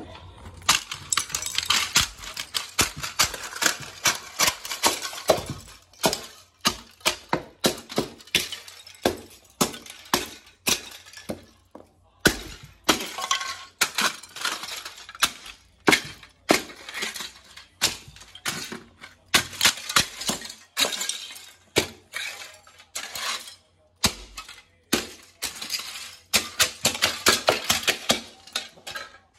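Model cars being crushed under platform high-heeled boots on a tiled floor. Repeated stomps crunch and crack the plastic, and loose fragments clink and scatter over the tiles. The stomps come in rapid runs, with short breaks.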